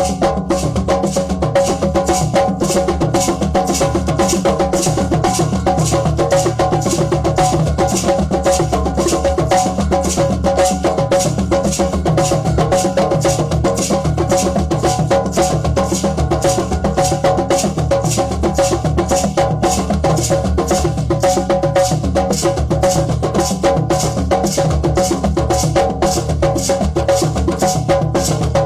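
Drum circle of hand drums playing together in a dense, steady, fast rhythm.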